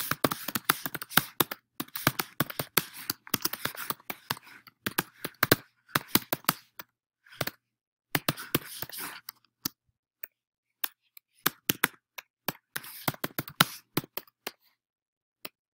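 Typing on a computer keyboard: runs of quick key clicks broken by short pauses, stopping shortly before the end.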